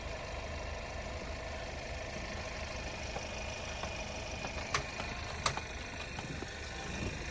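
An engine idling steadily, with two sharp clicks less than a second apart a little past halfway.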